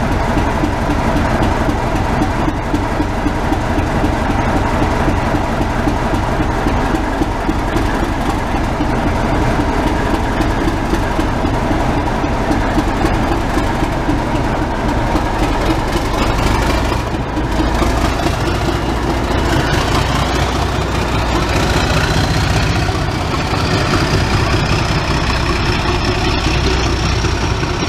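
Railway locomotive engine running steadily at a station platform, with a high whine climbing in pitch over the last few seconds.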